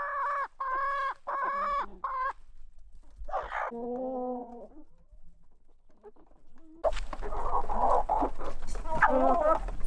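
Domestic chickens calling and clucking: a string of short calls in the first couple of seconds and another call about three and a half seconds in. From about seven seconds in, several birds cluck together, louder and busier.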